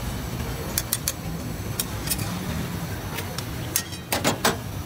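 Metal spatula scraping and clanking against a black iron karahi wok of cooking chicken: scattered sharp clicks, then a few louder strikes about four seconds in, over a steady low rumble.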